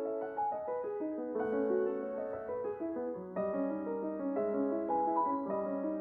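Background piano music: a gentle melody of sustained notes with a low bass note held under it.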